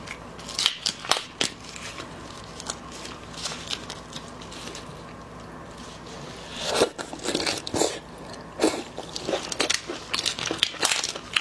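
Prawn shells cracking and crackling as gloved hands twist off the heads and peel raw marinated prawns: a few sharp crackles at the start, a quieter stretch, then a dense run of crackling from just past the middle to the end.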